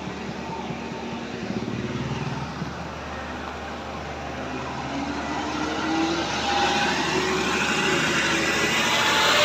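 A road vehicle's engine approaching, rising in pitch and getting louder over the last few seconds as it comes up the road.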